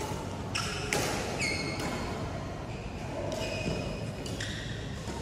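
Badminton play in a large hall: several sharp racket strikes on the shuttlecock, mixed with short high squeaks of sports shoes on the court mat.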